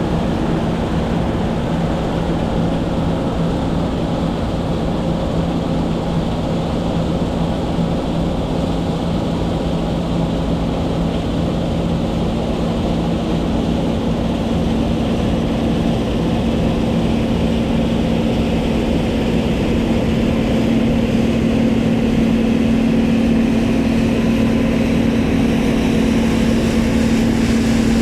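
John Deere T660 combine harvester running steadily, its engine and threshing machinery making a continuous hum. The engine note rises somewhat in the second half and grows a little louder.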